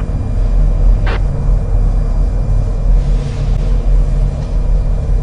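Steady low rumble of a police-radio ambience bed between dispatch transmissions, with a brief noisy burst about a second in and a soft hiss around three seconds in.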